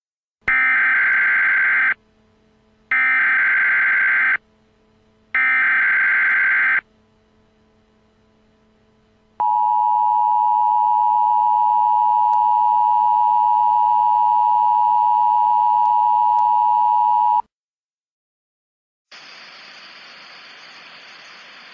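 Emergency Alert System SAME header: three short bursts of screeching digital data tones a second apart, then the steady single-pitch NOAA Weather Radio attention tone held for about eight seconds, the signal that a new weather alert follows. A quieter hiss comes in near the end.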